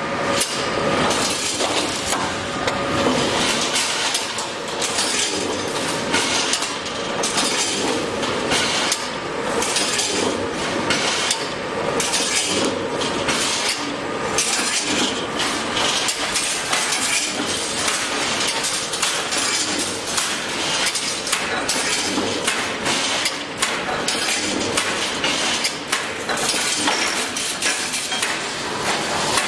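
Full automatic wire mesh panel welding machine running, with dense, irregular metallic clanking and clinking as the steel wires are fed and welded.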